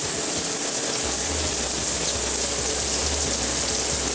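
Shower head spraying water steadily, a constant hiss of running water.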